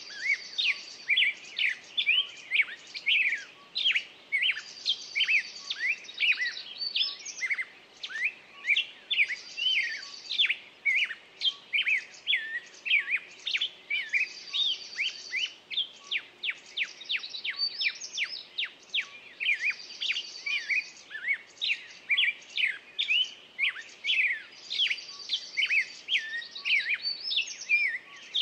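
Several songbirds chirping and singing together in a dense chorus of short, quick calls. A buzzy trill recurs every five seconds or so.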